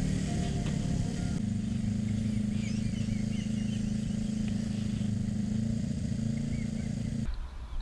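Kawasaki Ninja 500R's parallel-twin engine running steadily at low revs as the bike rolls slowly, with a few faint high chirps about three seconds in. The sound cuts off abruptly near the end.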